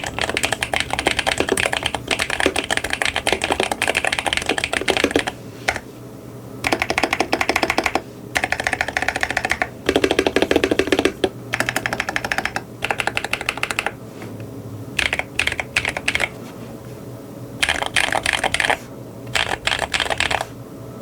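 Mechanical keyboard with Gateron Jade Emerald heavy tactile magnetic switches being typed on in fast runs of keystrokes, broken by short pauses. The clack is slightly high-pitched for this switch family.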